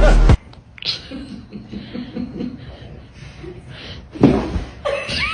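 A person chuckling softly in short repeated bursts, after a louder sound cuts off abruptly just after the start.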